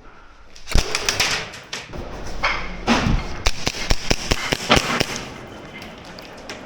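Airsoft guns firing: a run of sharp snaps and knocks, coming fastest from about three and a half to five seconds in, then dying down.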